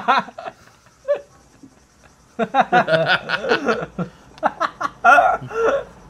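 Men laughing hard in short bursts, hushed for about two seconds near the start, then breaking out again.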